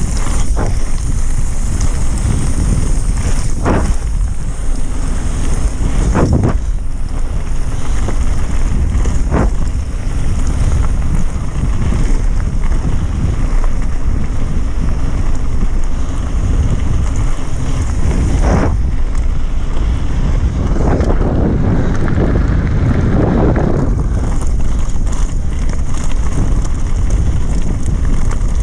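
Wind buffeting the microphone of a bike-mounted action camera on a fast mountain-bike descent, with tyres running over loose gravel. Occasional sharp knocks and rattles from the bike hitting bumps.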